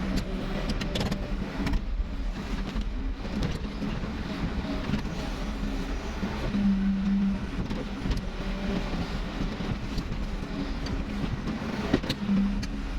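Backhoe's diesel engine running steadily, its drone swelling twice, with a few sharp clicks or knocks.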